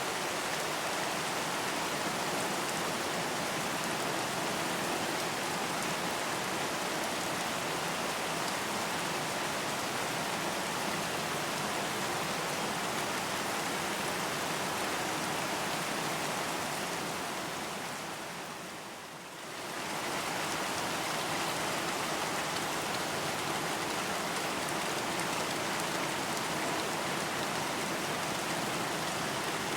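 Steady, even rain falling. It fades briefly about two-thirds of the way through, then comes back at the same level.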